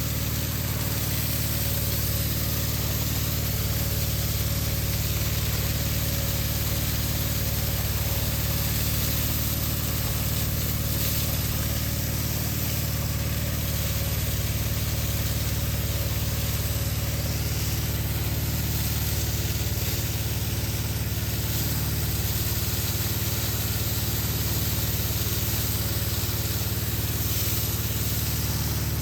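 Water pump running with a steady hum while water rushes and hisses under pressure through the pipe into a large tank.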